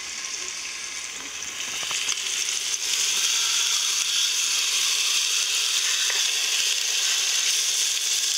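Beef steaks sizzling in a hot pan, the frying hiss building over the first three seconds as the meat goes in and then holding steady. A few light clicks of metal tongs come about two seconds in.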